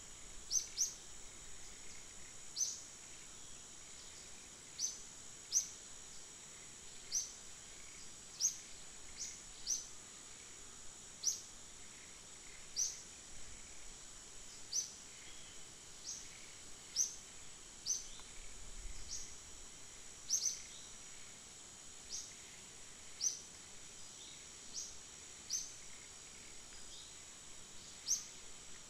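Outdoor woodland ambience: a steady high insect drone, with a bird's short falling chirp repeated irregularly, roughly once every second or two.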